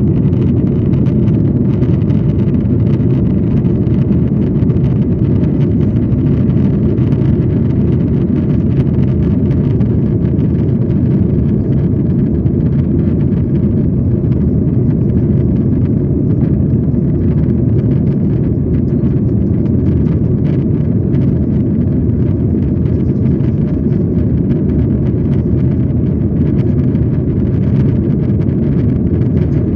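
Steady low rumble of jet engine and airflow noise heard inside the cabin of a Boeing 737 airliner in flight.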